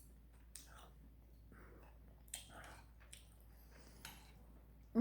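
A person chewing food: faint, scattered wet smacks and small clicks of the mouth, a few a little louder a bit past two seconds in.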